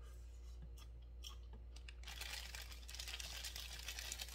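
Paper burger wrapper being unwrapped and crinkled, a dense rustling and crackling that starts about two seconds in, after a few soft clicks.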